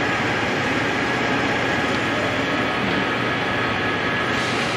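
Manual metal lathe running: a steady mechanical hum with a few constant whining tones from the spindle and gear drive. About four seconds in, a higher hiss comes up and one of the tones drops away.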